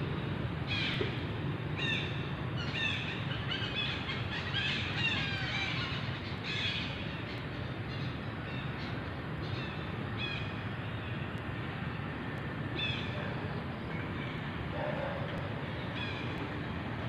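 Short, high chirping animal calls, coming in clusters several times over, above a steady low outdoor background noise.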